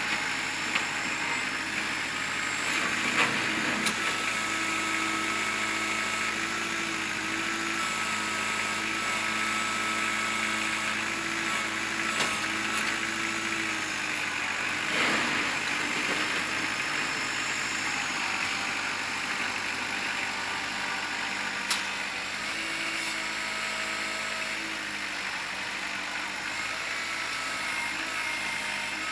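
Kubota L4600 tractor's diesel engine running steadily while it works a snow pile, its pitch stepping up and down several times as the load changes. A few sharp knocks come about 3, 12 and 22 seconds in.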